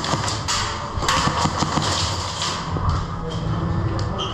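Airsoft guns firing: a quick run of sharp snaps about a second in, with scattered single cracks and thuds around it.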